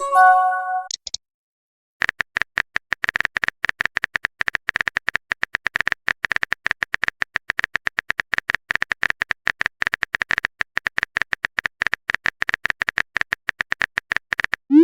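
Phone keyboard tapping sound effect: rapid, irregular key clicks of a message being typed, running from about two seconds in nearly to the end. It opens with a short notification chime of a few tones and ends with a quick rising swoosh, as of a text being sent.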